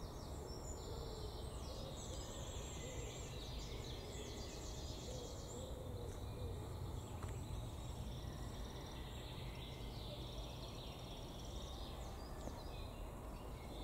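Faint birdsong: several small songbirds chirping and trilling repeatedly over a steady low outdoor rumble.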